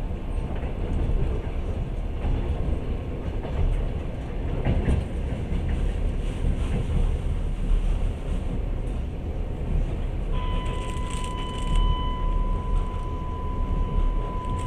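Passenger train car running along the track, heard from inside the carriage: a steady low rumble of wheels on rail. About two-thirds of the way through, a steady high tone starts and holds.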